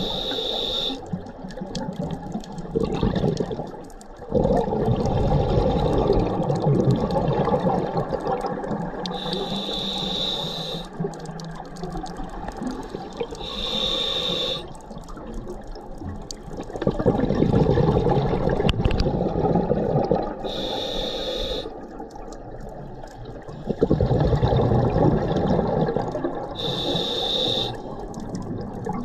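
Scuba diver breathing through a regulator underwater: a short hissing inhale with a high whine, then a longer burble of exhaled bubbles, the cycle repeating five times.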